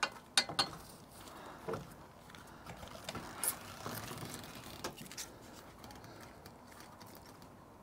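Faint, scattered metal clicks and taps of a ratchet and long spanner being worked onto a solar-panel bracket bolt, a few in the first five seconds, then quieter.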